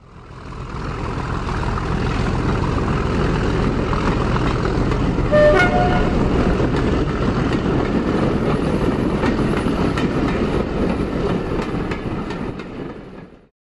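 Railway train running with a steady rumble, fading in at the start and out near the end, with a short two-note horn toot about five seconds in.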